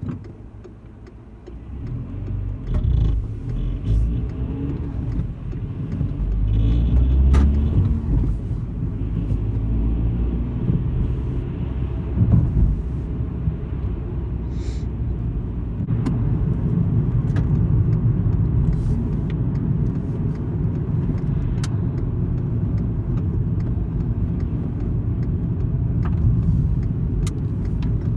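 Volkswagen Golf Mk5 driving, with a steady low road-and-engine rumble and sharp clicks and knocks at irregular moments. It is the unidentified rattle the owner is chasing: heat shields and exhaust mounts have already been checked and ruled out.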